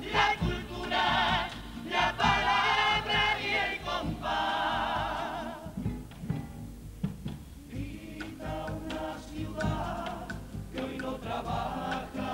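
A Cádiz carnival comparsa's male chorus singing a popurrí section in multi-part harmony with strong vibrato. The voices drop away for about two seconds around six seconds in, then come back more softly.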